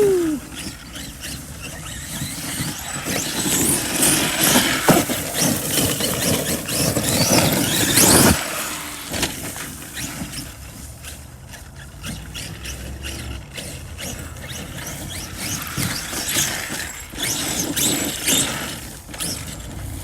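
ARRMA Kraton 8S electric RC monster truck driving off road, its 1100kv brushless motor whining up and down with the throttle over tyre and dirt noise. A falling whine comes right at the start, and sharp knocks come about 5 and 8 seconds in.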